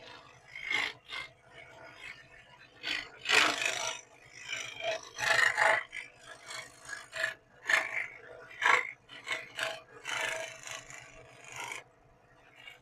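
Irregular rasping strokes of hand abrading, a file or abrasive scraping back and forth across a hard edge, about a dozen uneven strokes with short pauses between. A faint steady low hum runs underneath.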